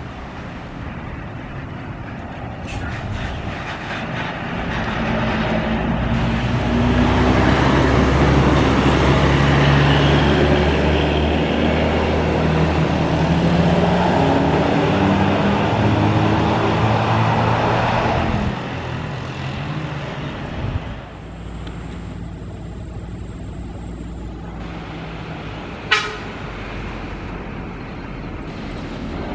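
Large tour buses driving past, their diesel engines swelling loudest in the middle, with a horn sounding in held, stepped tones. Near the end a single sharp click is heard over quieter engine noise.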